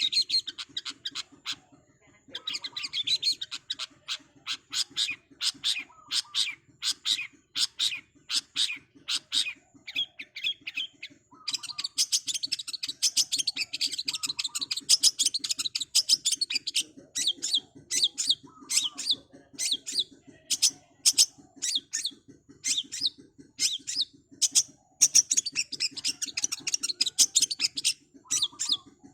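Long-tailed shrike (cendet) singing a fast, rapid-fire song of sharp chattering notes in long runs, with brief pauses about two seconds in and again near eleven seconds. A steady low buzz runs beneath the song.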